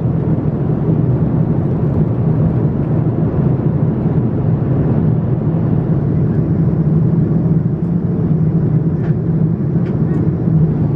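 Steady airliner cabin noise of a Boeing 787-9 in cruise, a low even rush of airflow and engines heard from inside the cabin. A couple of faint ticks come near the end.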